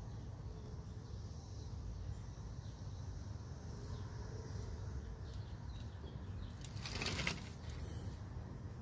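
Sliding screen door being pushed open by a cat: a brief scraping rattle of the screen frame and mesh about seven seconds in, with a shorter, higher one a second later. A steady low background rumble runs throughout.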